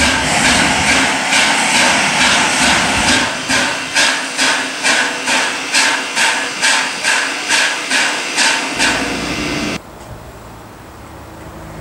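Exhaust of a 1952 VR Class Tk3 steam locomotive, chuffing steadily at about two beats a second as it moves slowly. About ten seconds in, the chuffing cuts off to a quieter steady background noise.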